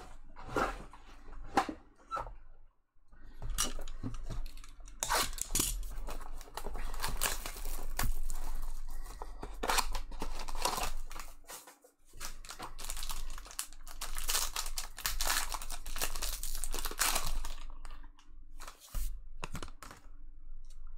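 Trading card pack wrappers being torn open and crinkled by hand, in two long bouts of tearing and crackling with a short pause between them, and a few brief handling noises before and after.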